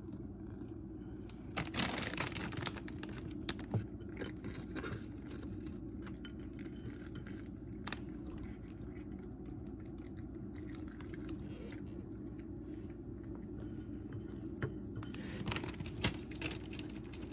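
A cat crunching dry food pellets from a plate, with crisp bites mostly in the first few seconds and a few more later, over a steady low background hum.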